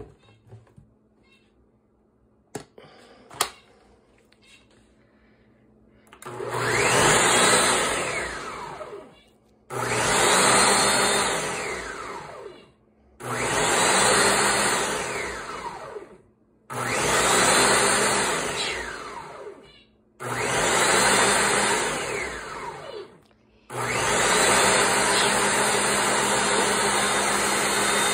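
Ninja countertop blender running an automatic program, puréeing boiled chickpeas, garlic, lemon and olive oil into hummus. After two sharp clicks, the motor comes on in five pulses of about three seconds each, every one fading before a short pause. Near the end it switches to running continuously.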